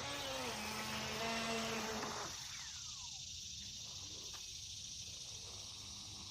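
Steady high-pitched chorus of insects, most likely crickets, with a faint wavering pitched sound for the first two seconds.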